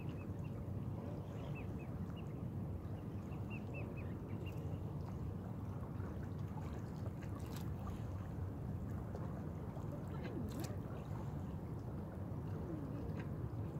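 Small waves lapping and gurgling against shoreline rocks over a steady low rumble, with faint high chirps in the first few seconds and a few sharp clicks later on.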